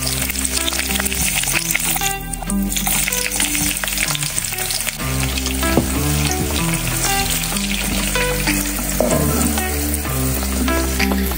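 Chopped onion sizzling as it fries in hot oil in a saucepan. The sizzle starts suddenly as the onion hits the oil, and the pieces are stirred with a spatula.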